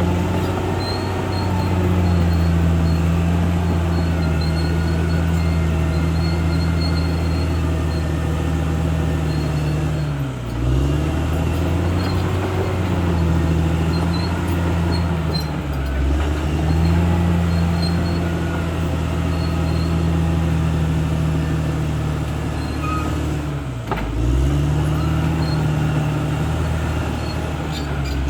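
CAT D6R XL bulldozer's diesel engine running steadily under load, its pitch dropping sharply and recovering three times.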